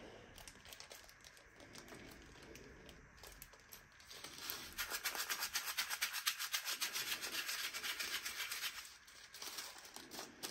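Small plastic zip bag of resin diamond-painting drills shaken hard. The drills rattle against the plastic in a fast, even rhythm from about four and a half seconds in until about nine seconds, after quieter rustling of the bag. The shake follows breathing into the bag, to clear static cling from the drills.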